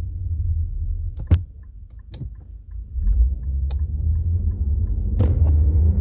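Low in-cabin rumble of an Infiniti sedan on the road. The rumble eases for a second or two, a few sharp clicks sound, and near the end the engine note rises as the car accelerates again.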